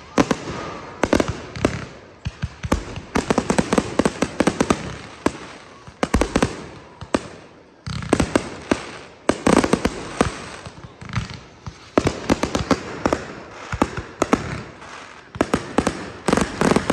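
Fireworks display: shells bursting in volleys of sharp bangs and rapid crackling, coming in dense clusters every second or two.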